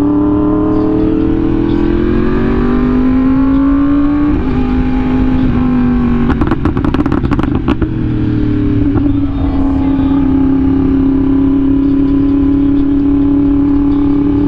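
Sport motorcycle engine under way, its pitch rising slowly as it pulls, stepping once about four seconds in. A burst of rapid crackles comes between about six and eight seconds, then the engine holds a steady pitch.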